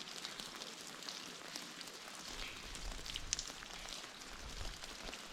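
Water dripping from above with rain pattering: a faint, steady patter with scattered sharp drip clicks.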